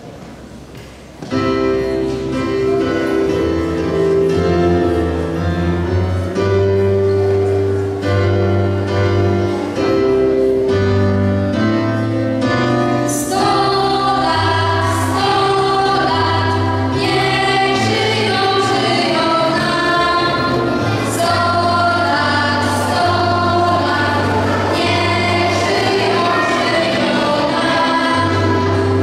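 A song's backing track starts suddenly about a second in with held bass notes and chords. About 13 s in, a group of girls begin singing together over it, one voice carried by a microphone.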